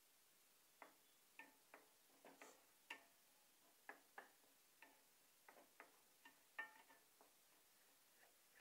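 Spatula tapping and scraping against a frying pan while stirring food in it: faint, irregular clicks, about two a second.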